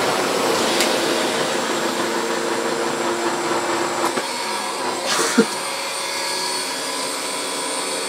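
Sebo Airbelt C3 cylinder vacuum cleaner running steadily on low power while its powerhead is pushed over a deep-pile carpet. A short knock comes about five seconds in.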